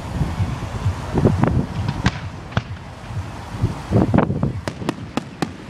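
Fireworks going off: repeated booming shell bursts, with a quick run of four or five sharp cracks about five seconds in.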